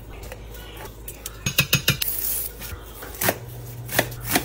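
A metal spoon clinking and scraping in the stainless steel inner pot of an Instant Pot, with a quick run of clinks about a second and a half in. Later, a few separate knocks of a knife cutting through a potato onto a cutting board.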